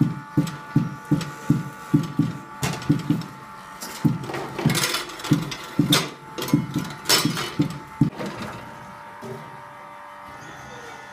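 Juggling balls bouncing on a hard board in a steady rhythm of dull thuds, about three a second, with a faint mechanical hum under them. The thuds stop about eight seconds in, leaving the hum and a few light knocks.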